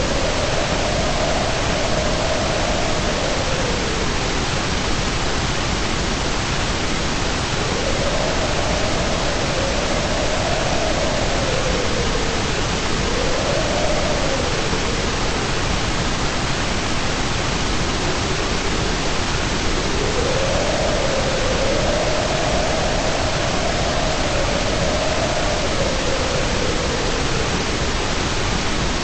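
Steady white noise, an even hiss with no breaks. A faint tone slowly wavers up and down in pitch under it at times.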